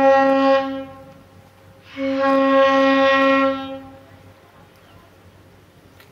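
Ship's horn sounding two long, steady blasts: the first ends about a second in, and the second starts about two seconds in and lasts about two seconds.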